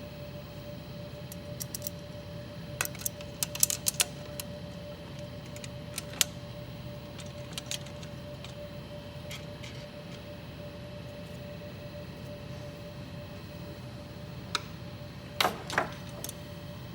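Scattered sharp metallic clicks and clinks of small tools and parts being handled during reassembly of an embroidery machine head, in a few short clusters, the loudest near the end. A steady hum runs underneath.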